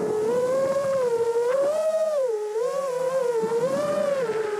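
Motors of an iFlight XL5 V5 five-inch FPV quadcopter, heard from the drone itself: a steady whine that wavers up and down in pitch every second or so as the throttle changes in low cruising flight. It is running on a 4S battery instead of its usual 6S.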